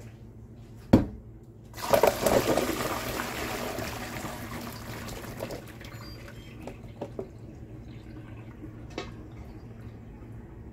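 Water and pieces of watermelon rind poured from a pot into a colander in a stainless steel sink. A single knock about a second in, then a loud rush of splashing water that fades over a few seconds into dripping and a few light clinks.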